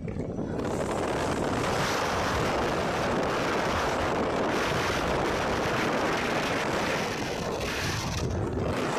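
Steady wind rushing over the microphone from a car driving over sand, with the vehicle's road and engine noise underneath.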